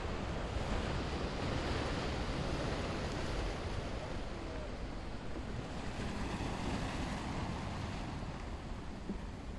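Steady sea ambience: waves washing on the beach, with wind rumbling on the microphone.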